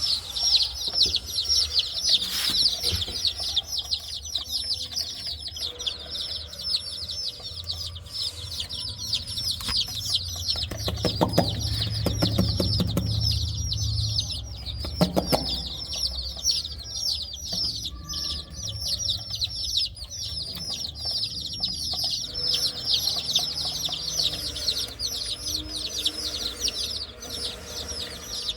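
A large crowd of chicks peeping continuously, many short high falling calls overlapping. Rustling and a few knocks from handling come through around the middle.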